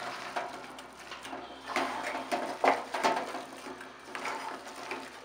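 A hand squishing and kneading thick, wet bonda batter of shredded cabbage and onion with gram flour in a steel bowl: irregular wet squelches of varying strength, the loudest a couple of seconds in.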